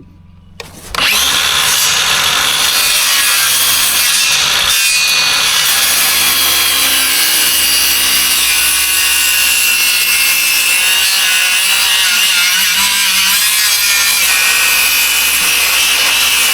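Cordless power saw cutting through a 2x6 wooden board. It starts about a second in and runs steadily without a break.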